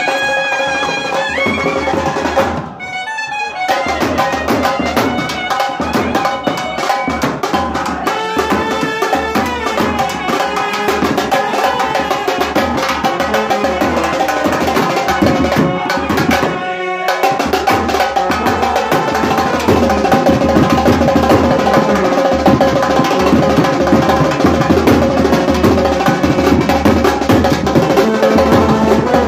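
Brass band playing: clarinets and a trumpet carry a melody over a steady beat on snare drum and bass drum.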